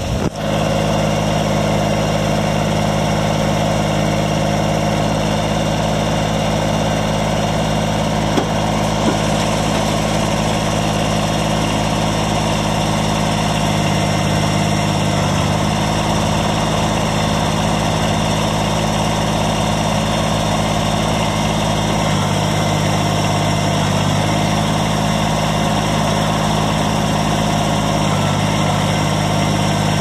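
Kubota BX25D compact tractor's three-cylinder diesel engine running steadily while the backhoe is operated, its note shifting slightly a few times.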